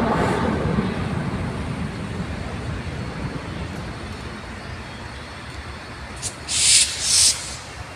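Jet airliner passing low overhead, its engine rumble fading steadily as it moves away. Near the end, two short, loud, high hiss-like bursts.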